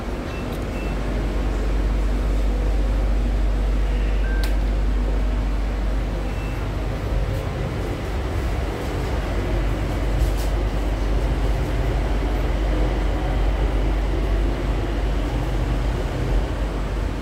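Steady low rumble of a Bangkok BTS Skytrain car running on the elevated line, heard from inside the carriage, with a faint hum and a few light clicks.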